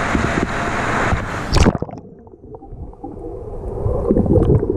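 Wave pool water rushing and splashing at the surface, then a loud splash about a second and a half in as the camera plunges under, after which everything turns muffled and underwater, with only low water sounds left.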